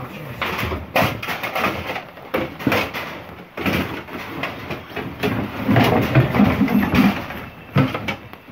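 Tools, boards and other junk clattering, knocking and scraping as they are shoved aside by hand to dig an item out of a packed pile.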